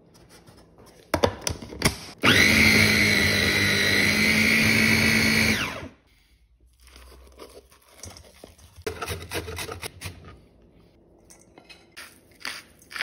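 Breville Mini Wizz mini food processor chopping falafel mix with herbs and onion into a paste: a few short bursts, then a steady run of about three and a half seconds that stops abruptly. Softer scraping and knocks follow later.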